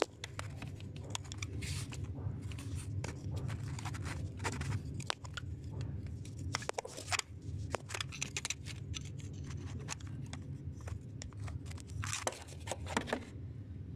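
A hand tool scraping and clicking in a diesel injector bore, cleaning dirt and carbon off the injector seat: short, irregular scrapes and clicks over a steady low hum.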